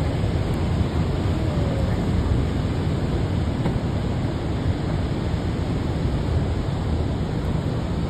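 Steady rush of the Rhine Falls waterfall and the churning river below it, with wind buffeting the microphone.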